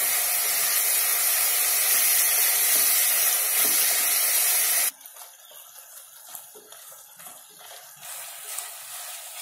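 Ground onion paste sizzling in hot oil in a kadhai while being stirred with a wooden spatula. A loud, steady hiss drops suddenly to a much quieter sizzle about five seconds in, with light scraping of the spatula.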